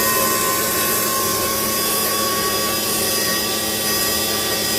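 Small electric winch motor on a radio-controlled construction model running steadily, reeling in cable under tension with a steady whine.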